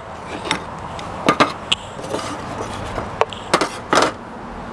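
Steady hiss with scattered sharp pops and crackles from the fire under the tripod grill and the hot, buttered cast iron pan, loudest twice about a second and a half in and again near the end.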